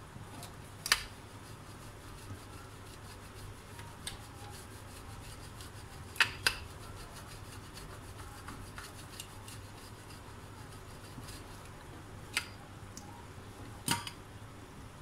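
Pie dough being rolled out with a stainless-steel rolling pin and pressed by hand on a floured countertop: a soft steady rubbing, with a few sharp knocks, two of them in quick succession around the middle.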